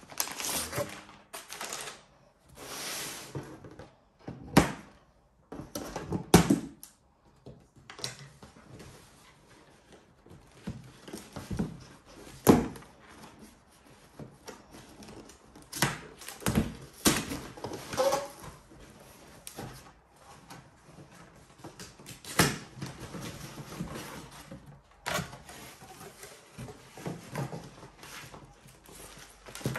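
Parcel unboxing: a paper mailer rustling as it is cut open with scissors, then a cardboard box being handled and set down on a wooden table, with irregular knocks and thuds as it is opened.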